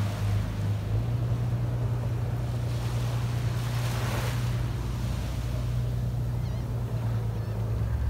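Small waves breaking and washing up a sand beach, swelling loudest about four seconds in, over a steady low rumble.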